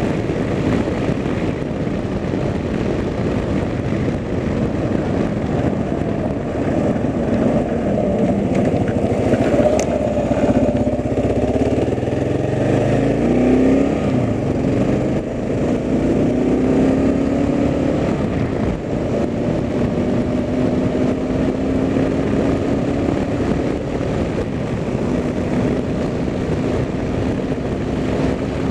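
A vehicle's engine and road noise while driving, the engine note rising about twelve seconds in and then holding steady.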